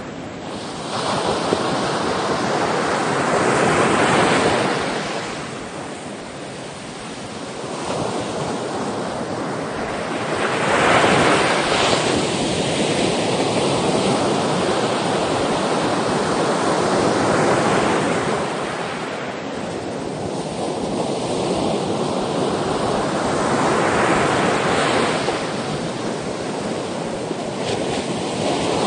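Sea waves breaking and washing on the shore, the rush swelling and falling away about every six to seven seconds.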